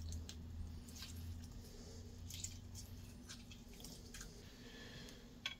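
Half a lemon squeezed by hand over a plastic bowl: faint squishing of the fruit and juice dripping into the bowl, with a few soft ticks.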